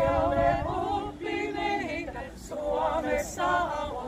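Small women's folk ensemble singing a verse of a folk song a cappella, in phrases with a brief breath about halfway through.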